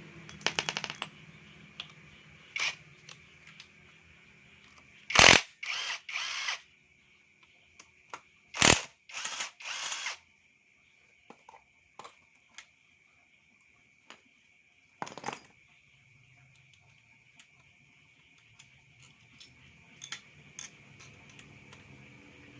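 Tools at work on a scooter engine being dismantled: scattered clicks and knocks, with two runs of three short loud bursts about five and nine seconds in.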